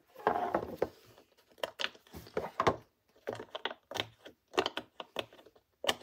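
Silicone pop-it fidget toy being pressed, its bubbles popping in a string of short, irregular clicks. A short rustle of handling comes first.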